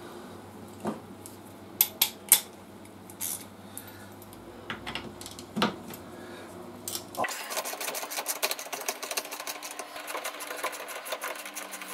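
A few separate clinks of metal tools. Then, about seven seconds in, rapid continuous ratcheting clicks begin as a 6 mm Allen socket undoes the motorcycle's rear brake caliper bolts.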